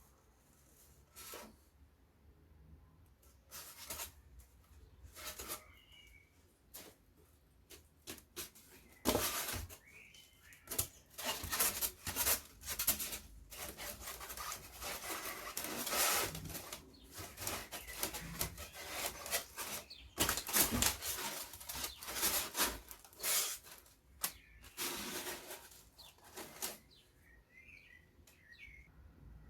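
Irregular rubbing and scraping strokes of hands and tools working craft material. They are sparse at first and grow busy and louder from about nine seconds in.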